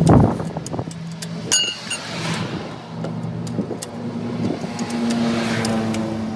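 A motor running steadily with a low hum, a sharp knock right at the start, and scattered clicks. A single ringing metal clink comes about one and a half seconds in.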